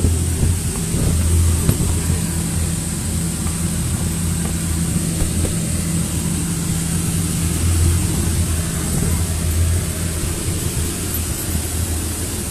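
Electric air blower running steadily to keep a PVC inflatable blown up: a continuous low hum with a hiss above it.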